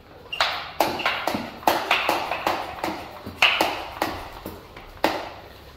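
Hand pump pressure sprayer being pumped up to pressure: about a dozen short, sharp strokes, roughly two a second, stopping shortly before the end.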